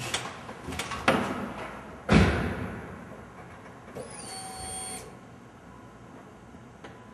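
Three heavy thuds, each ringing out for most of a second, then about four seconds in a short electronic chime that dips slightly in pitch and holds for about a second. No engine is running yet.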